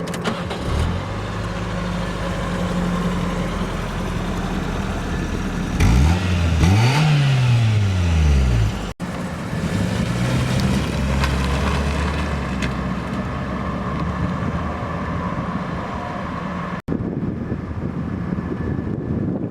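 1990 Toyota Sera's 1.5-litre inline-four engine idling steadily, revved once about six seconds in, its pitch rising and falling back. The sound drops out sharply for an instant twice.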